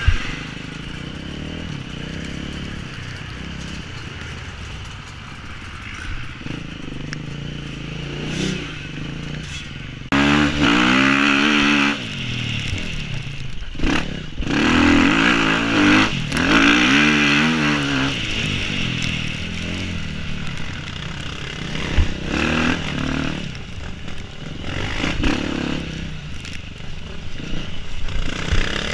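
Dirt bike engine being ridden hard, its note climbing and falling again and again as the throttle is worked, heard from the rider's helmet camera with wind rumble and rattling. It is loudest through the middle of the stretch.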